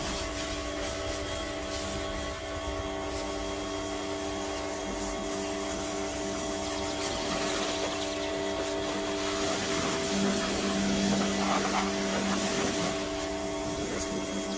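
Pressure washer running, its motor humming steadily while the jet sprays water over a car's bodywork, rinsing off the traffic film remover pre-wash. A deeper hum joins for a couple of seconds about ten seconds in.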